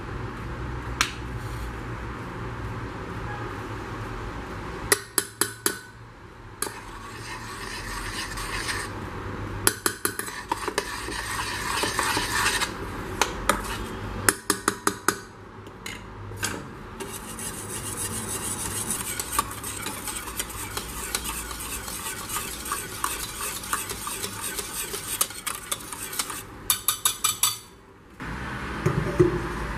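A metal spoon stirring a thick chocolate and milk mixture in a stainless-steel pan: steady scraping against the pan, with several short runs of quick clinks as the spoon strikes the side of the pan.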